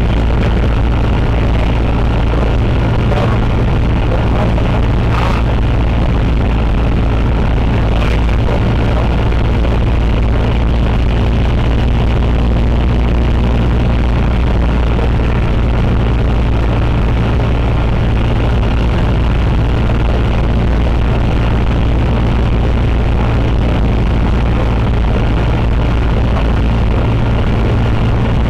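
Cessna 150's four-cylinder Continental O-200 engine and propeller running at a steady drone, with a few faint clicks about three, five and eight seconds in.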